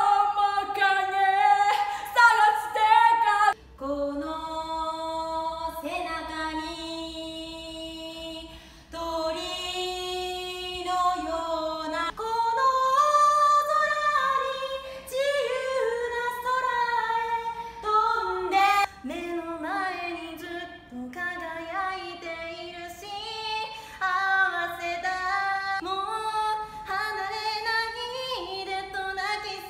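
Young women singing solo and unaccompanied, several singers in turn, with long held notes and gliding pitch.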